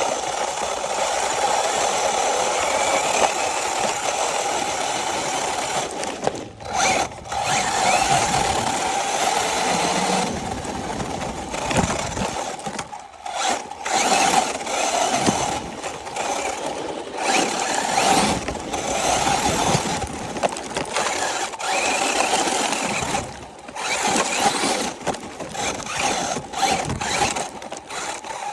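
A 1/10-scale RC car's electric motor and drivetrain whining as it is driven. The whine drops out briefly several times and then picks up again.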